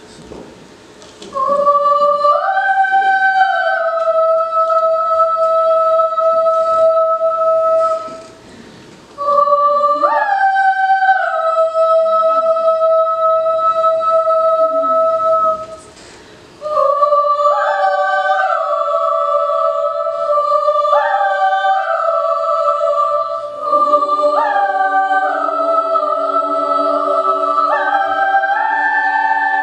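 Unaccompanied children's choir singing a folk chant. A lone high voice sings long held notes in three phrases with short breaks, and about 24 seconds in lower voices join, holding notes beneath it.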